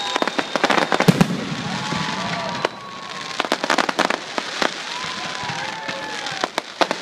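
Fireworks display: rapid sharp bangs and crackling from white crackling shells bursting overhead, thickest about a second in and again around four seconds, over a continuous hiss of the show.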